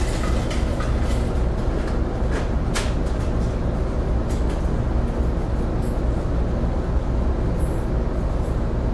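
Car ferry's diesel engines running with a steady low drone as the ship pulls away from the pier, its propellers churning the water astern.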